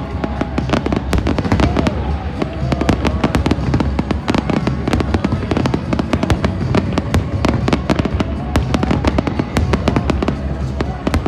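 Fireworks display bursting continuously, a dense run of sharp bangs and crackles over a constant low rumble, with music playing along underneath.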